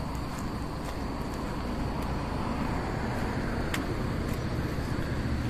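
Steady outdoor background noise: a low rumble under an even hiss, with a few faint ticks.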